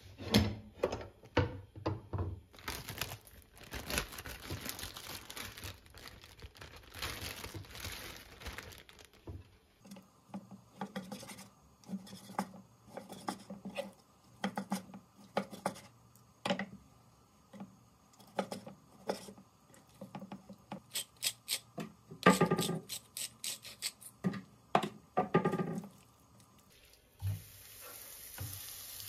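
Plastic packaging crinkling and tearing as raw chicken is unwrapped, followed by a chef's knife cutting chicken breast on a cutting board in a long run of separate knocks. Near the end the chicken hits a hot pan and starts to sizzle.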